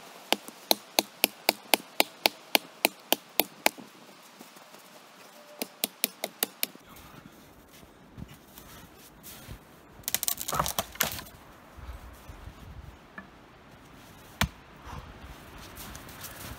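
An axe chopping into the trunk of a thin standing dead tree: a rapid run of sharp strikes at about four a second for some four seconds, then a shorter, quicker flurry of chops. A short burst of cracking and rustling comes about ten seconds in, followed by a single knock.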